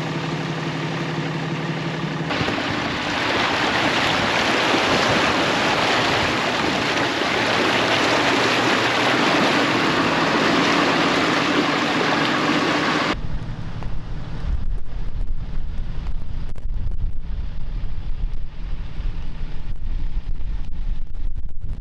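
A truck's engine running steadily, then a broad, steady rush of engine and road noise as it drives along a rough road. About thirteen seconds in, that stops abruptly and gives way to low, gusty rumbling of wind on the microphone.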